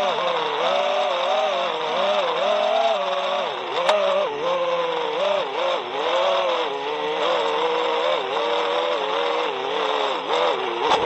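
Brushless motors and propellers of a 5-inch FPV racing quadcopter (Hypetrain Botgrinder motors, HQProp Ethix S4 props), recorded from on board, whining with a pitch that keeps rising and falling as the throttle changes. There is a single sharp click about four seconds in.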